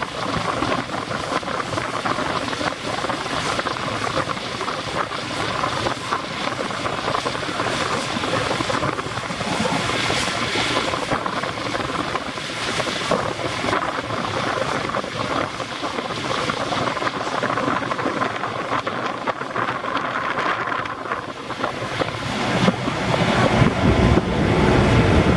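Double-deck ferry under way: a steady rush of water and wind buffeting the microphone, with a deep engine rumble that swells near the end.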